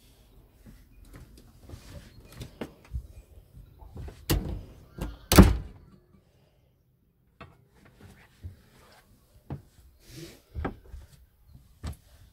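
Knocks and thunks from a boat's wooden cabin door and fittings being handled in a small cabin. The loudest is a sharp thunk about five seconds in. Lighter scattered knocks and clicks follow.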